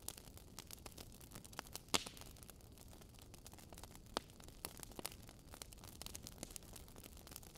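Faint crackling: irregular sharp clicks over a low steady hiss, with louder clicks about two seconds and four seconds in.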